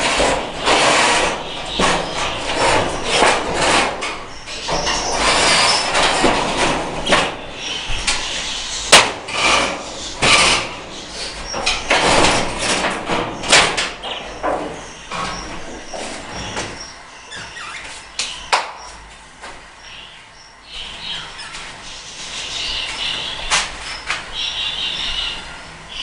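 Irregular knocks, scrapes and clatter, busiest in the first two thirds. Short high budgerigar chirps come through more clearly near the end.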